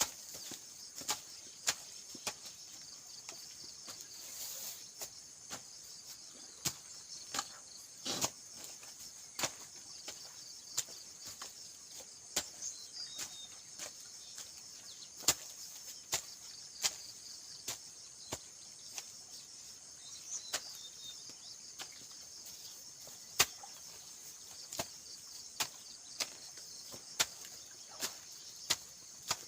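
Steady high chirring of crickets or other insects, with sharp knocks or chopping strikes at irregular intervals, roughly one a second.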